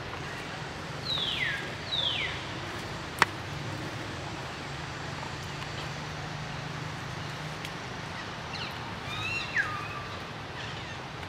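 Three short, high animal calls, each sliding quickly down in pitch: two close together about a second in and one near the end. There is a single sharp click about three seconds in, over a steady low hum.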